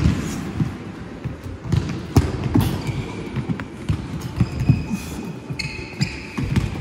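Futsal balls being kicked and bouncing on a wooden sports-hall floor, with thuds of a goalkeeper diving and landing, and a few short high squeaks.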